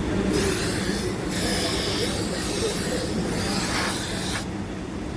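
Hissing that cuts in and out over a steady low machine hum, with short breaks about a second in and near the end.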